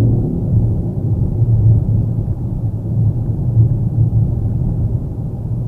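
Steady low road and tyre rumble heard inside the cabin of a Mitsubishi Xpander on the highway, with no wind whistle over it: the car has new rubber door seals and the owner hears no wind noise.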